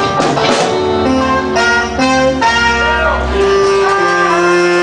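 Live reggae band playing, with saxophone and trumpet holding long notes over drums, bass and electric guitar.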